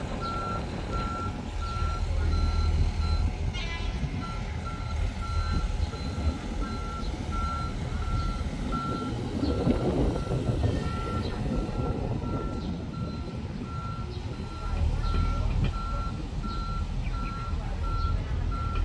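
Road-rail excavator's diesel engine running with its travel alarm beeping steadily, about two beeps a second. The beeping breaks off briefly about four seconds in.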